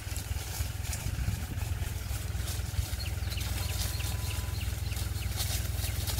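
Tractor engine running steadily at a constant speed, a low even rumble, while it drives a tractor-mounted HTP spray pump.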